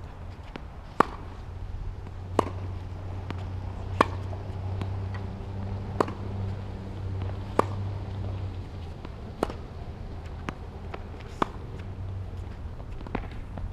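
Tennis balls being struck by rackets and bouncing on the court during a rally: sharp pops about every one and a half to two seconds, over a steady low rumble.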